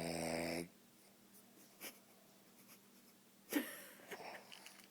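A man snoring in his sleep: a pitched, droning snore that stops about half a second in. A short breathy sound follows about three and a half seconds in.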